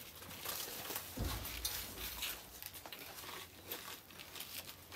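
Disposable plastic plates crinkling and plastic spoons clicking and scraping against them while people eat, in scattered small clicks and crackles, with a dull bump about a second in.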